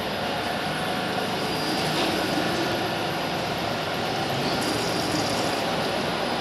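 Steady mechanical noise: a continuous rumble and hiss at an even level, with no breaks or distinct strokes.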